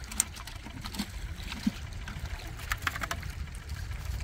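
Small waves lapping against shoreline rocks over a steady low rumble, with a few sharp clicks and taps scattered through, a quick cluster of them about three seconds in.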